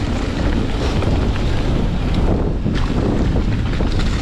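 Wind rushing over the microphone with a steady low rumble from a Nukeproof Scout 27.5 hardtail mountain bike being ridden fast downhill on a dirt trail.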